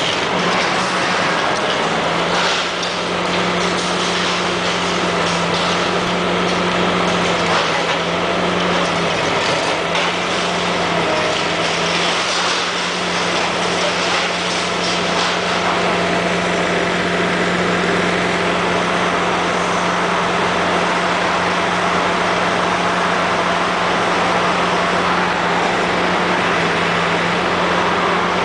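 Komatsu PC400 high-reach demolition excavator's diesel engine running steadily under load with a constant hum. Intermittent crunching and grinding comes from the hydraulic jaw attachment breaking up reinforced concrete.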